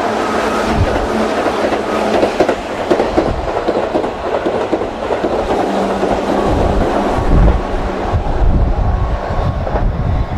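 Keihan electric train running past the station platform: a loud, steady rush of wheel and running noise, with a heavier low rumble and the clatter of wheels over rail joints from about six seconds in.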